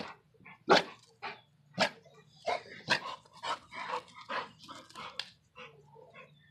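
Large dogs barking: a run of about a dozen loud barks at an uneven pace, growing quieter near the end.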